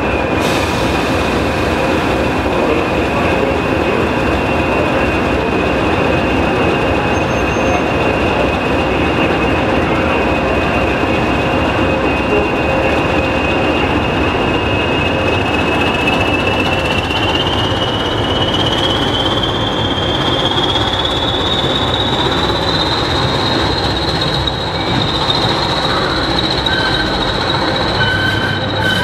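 Class 20 diesel locomotive D8001 running light under power: its English Electric V8 engine drones steadily over a high turbocharger whistle. The whistle climbs in pitch a little past halfway and then holds as the engine works harder.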